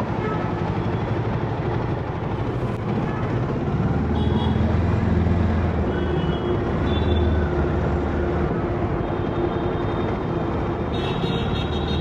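Road traffic: vehicle engines running with a steady low rumble that grows louder about four seconds in, with a few faint short high tones over it.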